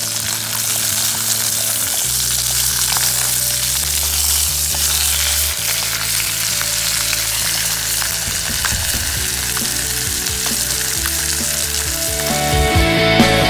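Teriyaki chicken pieces sizzling hard in hot oil in a small nonstick camping pot, with the scrape and clink of tongs turning the meat.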